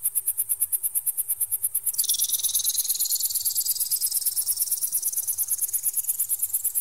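Synthetic high-pitched bird-repellent sound meant to scare off magpies: electronic beeping pulsing about ten times a second. About two seconds in, a second tone drops sharply and then rises slowly in pitch.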